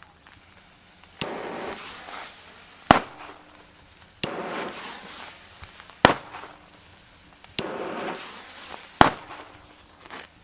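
Three Dumbum F2 firecrackers going off one after another, about three seconds apart, each a single sharp bang. A short hiss of about a second comes before each bang.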